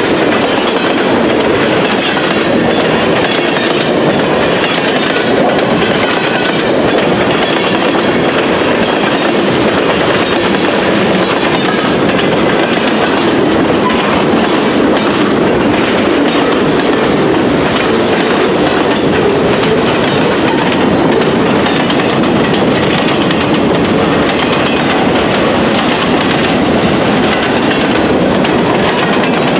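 Freight cars of a long mixed train rolling past close by: a loud, steady rumble and rattle of steel wheels on the rails, with clickety-clack from the passing wheel sets. The cars are tank cars, lumber-laden centerbeam flatcars and empty woodchip gondolas.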